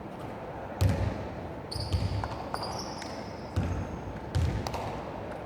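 Basketball bouncing on a gym floor: four heavy bounces about a second apart, with short high squeaks between them.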